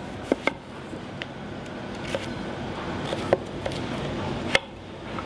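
Chef's knife cutting through peeled raw pumpkin, the blade tapping down on a wooden cutting board in several sharp, irregularly spaced knocks, the loudest two in the second half, over a steady background hiss.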